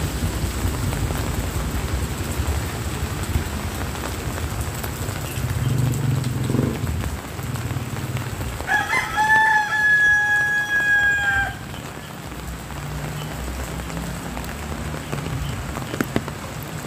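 A rooster crows once, a single held call of about three seconds midway through, over the steady hiss of light rain and a low rumble.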